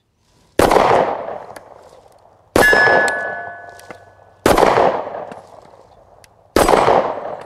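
Four 9mm pistol shots from a Kahr CW9, about two seconds apart, each with a long fading echo; after the second shot a steel target rings. The pistol fires each round without a misfire.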